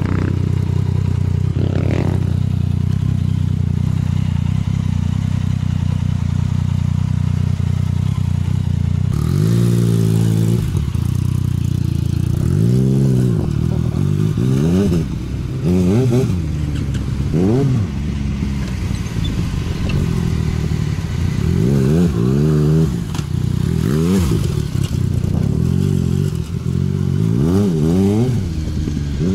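Motorcycle engine running steadily for the first several seconds. From about nine seconds in, off-road motorcycles rev and accelerate one after another, each rising and falling in pitch, on the loose dirt.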